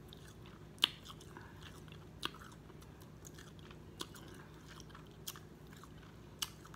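Close-up eating sounds of boiled crawfish being pulled apart and eaten by mouth: about five sharp, short cracks and smacks of shell and lips, spaced unevenly, with faint chewing between.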